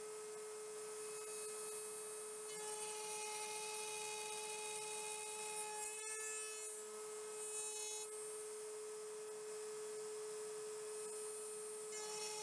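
Table-mounted router running with a steady high whine. A rougher hiss joins it from about two and a half to eight seconds in, and again near the end, as the bit cuts finger-joint slots in a board pushed through on a box joint sled.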